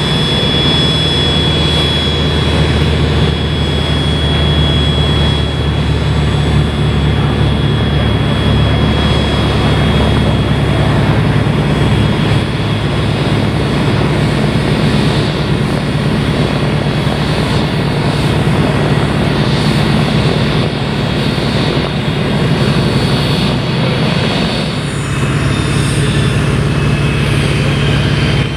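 HondaJet light business jet's twin turbofan engines running at taxi power: a steady jet whine over a low hum. The high whine is strongest in the first few seconds, and the sound changes about 25 seconds in, with new high whines coming in.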